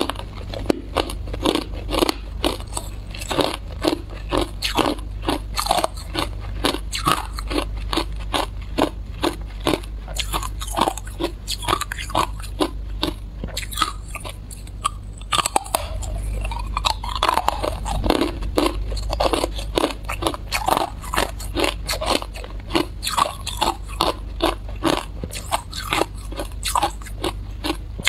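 Hard clear ice being bitten and chewed close to the microphone: rapid, crisp crunching that goes on almost without a break, easing off briefly about halfway through.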